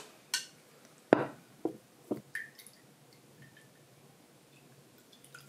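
Sake poured from a glass carafe holding ice into a small glass: a few short splashes and clinks in the first couple of seconds, then quiet pouring fades out.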